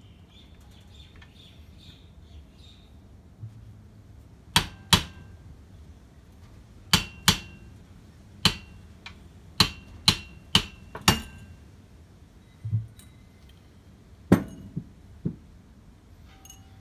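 A claw hammer taps the mower engine's metal clutch housing about a dozen times, starting a few seconds in. The taps come singly and in quick pairs, each with a short metallic ring. They are knocking the stuck clutch apart into its cone and outer ring.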